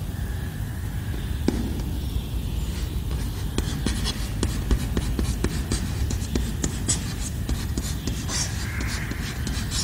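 Chalk writing on a blackboard: a string of quick taps and short scratches as letters are written, over a steady low room hum.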